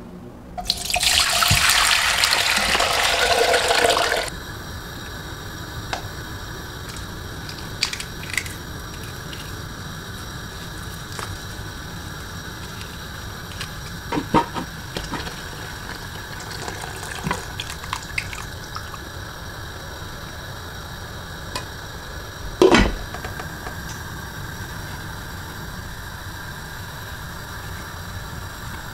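Water running into a pot in a stainless-steel kitchen sink for about three seconds, then a low steady background with scattered light clinks and one sharp knock about three-quarters of the way through.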